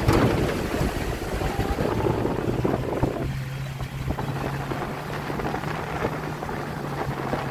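A car driving along a road: wind noise on the microphone over road rumble, with a steady low engine hum that settles in about two to three seconds in.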